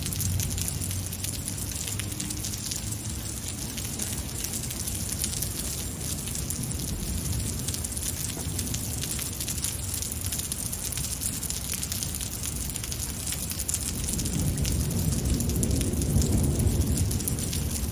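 Heavy rain pouring onto pavement and a wet street, a steady hiss with a dense crackling patter of drops. A low rumble of thunder swells about fourteen seconds in and eases off near the end.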